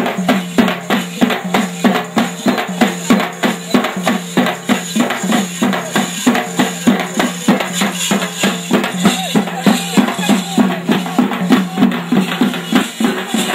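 Procession drumming with music: drums keep a fast, even beat of about three strokes a second over a held low note.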